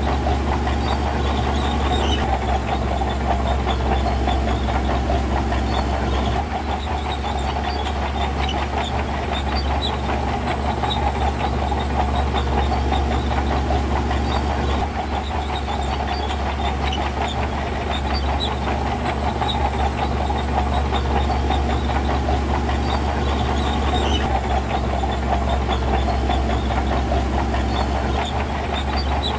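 Diesel engine of heavy earthmoving equipment running steadily, with a dense rattle over a deep hum.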